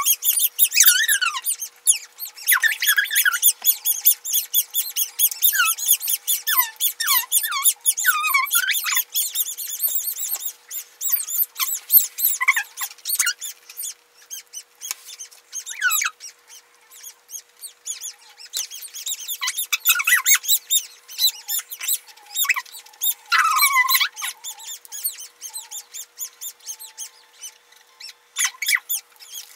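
Newborn kittens squeaking and smacking wetly as they suckle at a feeding bottle: many short, high squeaks, thickest in the first ten seconds and again about twenty seconds in, over a faint steady hum.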